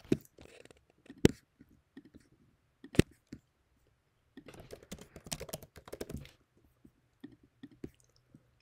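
Computer keyboard and mouse clicks: two sharp single clicks about one and three seconds in, then a quick run of taps and clicks in the middle, with a few light ones near the end.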